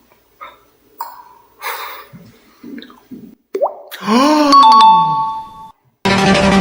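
Beatbox mouth sounds imitating sound effects: a string of short pops and clicks, then a pitched voice that swoops up and slides down about four seconds in. Music starts near the end.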